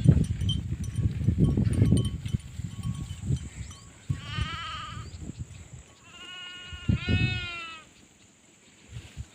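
Sheep bleating: one wavering bleat about four seconds in, then two more bleats close together around six to seven and a half seconds. A loud low rumble fills the first two seconds.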